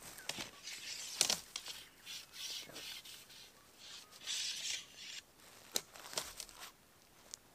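Nylon body of a Eureka Midori 1 tent rustling and crinkling in spells as its poles are slid along it during pitching, with a few sharp clicks from the poles.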